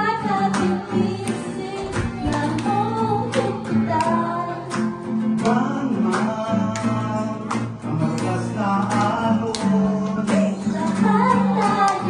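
Acoustic guitar strummed in a steady rhythm, accompanying women singing a song into microphones.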